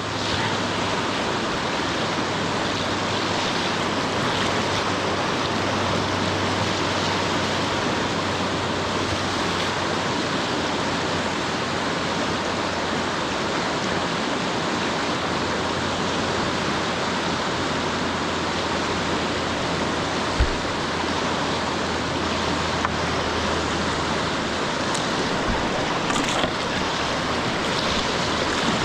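River rapids rushing steadily: shallow white water pouring over rocky drops, with a brief knock about two-thirds of the way through.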